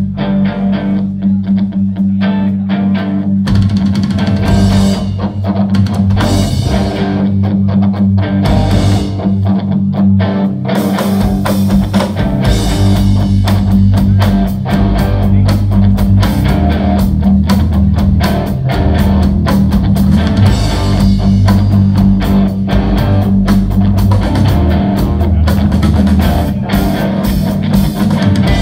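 Live rock band playing loud, with electric guitar over a held low bass note and drums. The playing thickens a few seconds in, and from about eleven seconds dense cymbal strokes fill the top.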